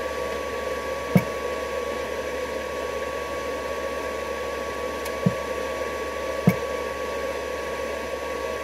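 Steady whirring, fan-like noise with a thin, high, steady whine through it, and three short soft knocks.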